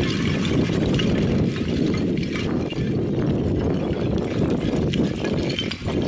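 Wind rumbling steadily on the microphone, with light clicks and clinks of loose talus rocks shifting under a climber moving down the slope on his seat.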